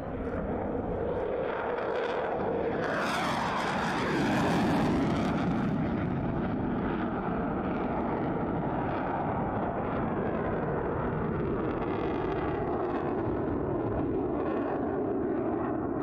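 Fighter jet's engine noise as it makes a low pass and pulls into a steep climb. It swells to its loudest about three to five seconds in, with a falling sweep in pitch as the jet goes by. It then settles into a steady rumble as the jet climbs away.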